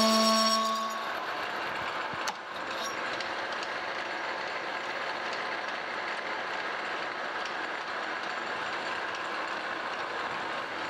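Metal lathe taking an interrupted roughing cut through the old teeth of a change gear blank. The tool makes a steady cutting noise, with one sharp click about two seconds in.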